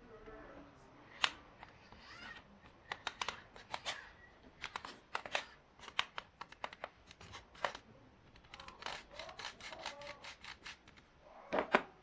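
Irregular sharp metal clicks and ticks, some in quick runs, from pliers handling a small microwave-oven turntable motor.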